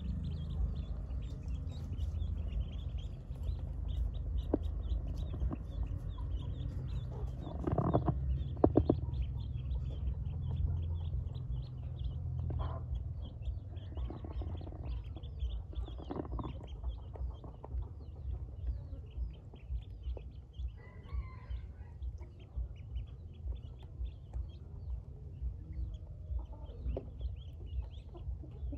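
A crowd of Pekin ducklings peeping, with many short high chirps overlapping, while their bills dabble in a bowl of water, over a steady low rumble.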